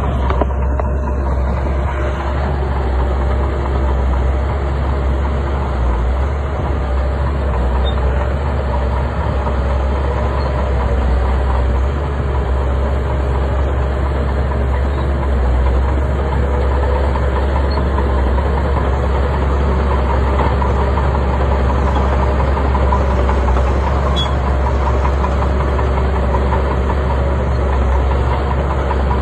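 Bulldozer's diesel engine running steadily and loudly, a deep continuous drone with no pauses.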